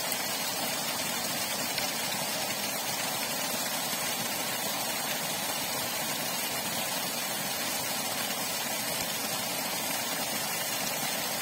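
Steady rush of water gushing from a submersible borewell pump's discharge pipe, the jet splashing down onto muddy ground.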